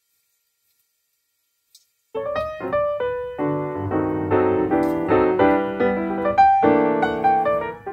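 Silence for about two seconds, then background piano music starts and plays on with a quick run of notes.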